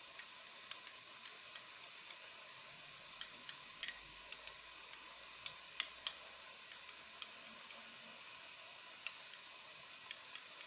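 Metal spoon stirring miso paste into water in a small glass bowl, clinking lightly and irregularly against the glass as the paste is worked to dissolve it.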